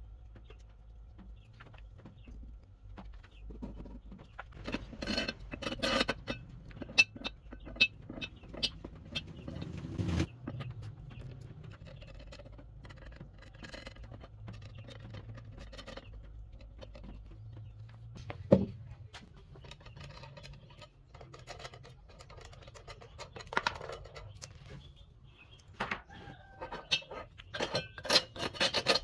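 Wooden clamp blocks and steel threaded rods knocking and clicking as they are handled and fitted around a glued-up stack of segmented wood rings: scattered clicks in clusters, with one sharp knock about two-thirds of the way through. A steady low hum runs underneath.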